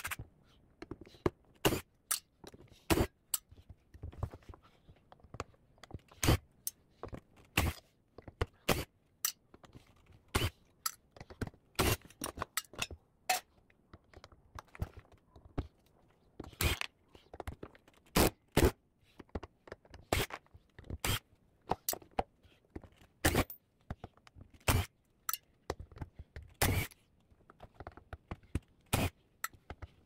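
Irregular sharp clicks, knocks and scrapes of tools and metal parts against the plastic tub and steel motor plate of a Samsung top-loading washing machine as it is dismantled for scrap, about one knock a second with no steady motor sound.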